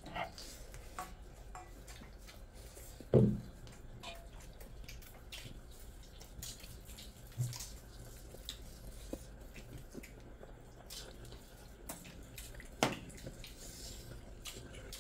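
Eating by hand from steel plates: fingers mixing rice and curry and scraping the metal plates, with many small clicks and taps and chewing, and two louder low thumps, one about three seconds in and one near the end.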